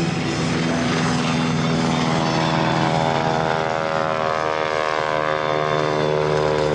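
Propeller airplane engine droning as the plane flies by, its pitch shifting partway through.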